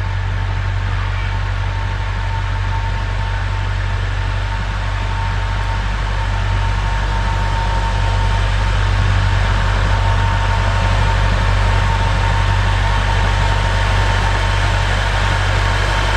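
Narrow-gauge diesel locomotive's engine running with a steady low drone and a faint steady whine above it as it approaches with its train, growing a little louder about halfway through.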